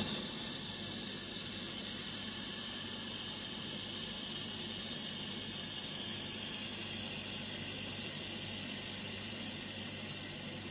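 1500 W Raycus handheld fiber laser welder running a weld bead with auto-fed filler wire: a steady high hiss from the welding head.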